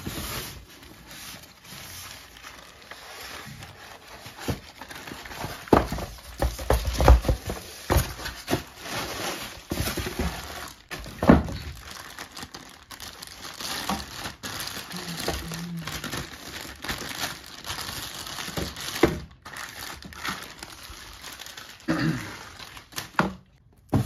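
Packaging being handled as a soundbar is lifted out of its styrofoam insert: plastic wrap crinkling and rustling, with a string of knocks and thunks, the heaviest about six to seven seconds in and again around eleven seconds.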